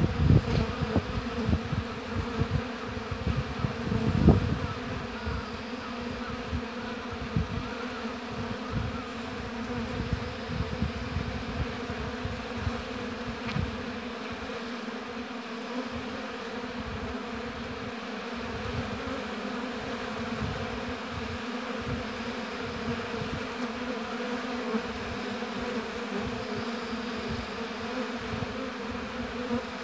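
Honeybees buzzing in numbers at the hive: a steady, continuous hum. There are a few low rumbles in the first half, the loudest about four seconds in.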